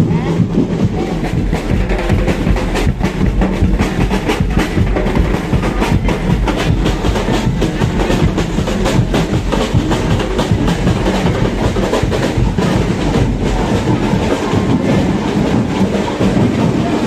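Carnival percussion band playing drums in a dense, driving rhythm, with sharp knocking beats over a steady bass drum.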